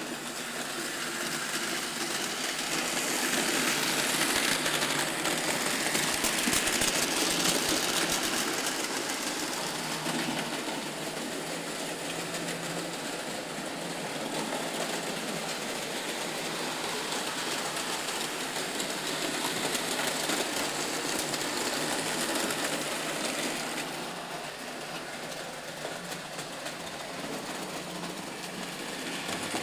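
Märklin model trains running on the layout: the steady whir of their small electric motors and the rattle of wheels over the track, loudest in the first third and a little quieter near the end.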